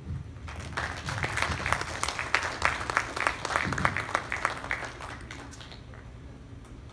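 Audience applauding: dense clapping that starts about half a second in and dies away about five seconds in.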